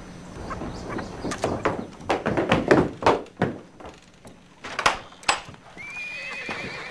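A run of thuds and footsteps on wooden floorboards, then a wooden door creaking open near the end.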